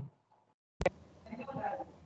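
Audio cut out to dead silence, then a single sharp click a little under a second in, followed by faint, indistinct speech.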